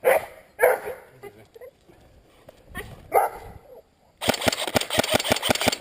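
A rapid string of about ten sharp airsoft gun shots near the end, about seven a second. Before that come three short loud calls, with a pause between the second and the third.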